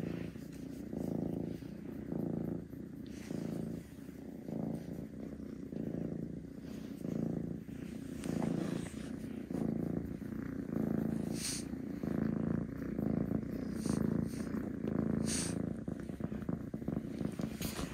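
Orange tabby kitten purring steadily while being stroked, the purr swelling and easing in a regular rhythm with each breath in and out. Two brief rustles cut in about two-thirds of the way through and near the end.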